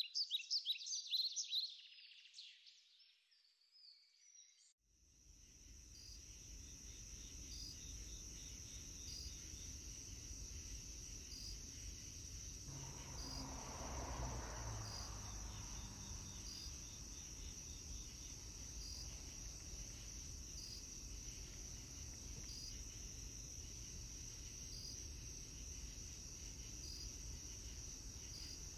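Crickets trilling steadily, a faint high-pitched chorus that starts about five seconds in, over a low background rumble. A soft swell of noise rises and fades around the middle.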